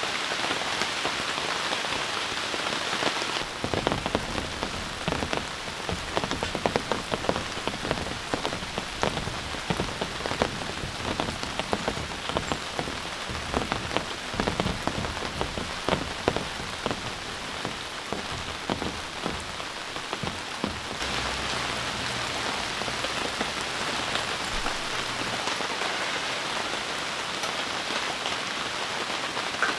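Heavy rain falling steadily, with many separate drop strikes in the hiss. The sound changes character about four seconds in, with the drop hits growing thicker and lower, and changes again about 21 seconds in.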